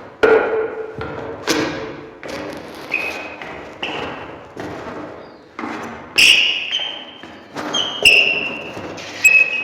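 Hard-soled shoes stepping on a wooden floor at a slow walking pace, about a dozen steps. Several steps are followed by a short high-pitched ring.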